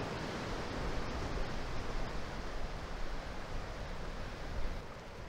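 Ocean surf washing over and draining off coastal rocks: a steady rushing hiss that eases a little near the end.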